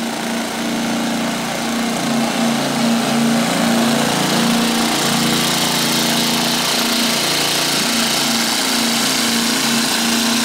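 Pair of Champion 2000-watt four-stroke inverter generators running together in parallel, loaded by an RV air conditioner, running loud. The two engine notes waver slightly in pitch and cross each other as the inverters adjust to the load.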